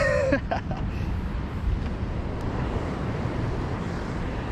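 Steady wind noise on the microphone over the wash of ocean surf.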